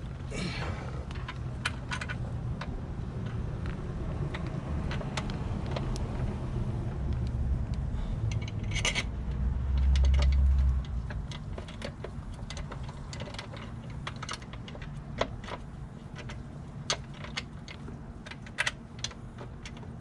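Scattered light metallic clicks and clinks of hand tools and small parts being handled during engine-bay reassembly, over a low rumble that swells briefly about ten seconds in.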